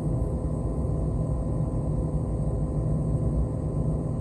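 Concrete mixer truck's diesel engine running steadily: a deep, even rumble with a faint constant hum over it.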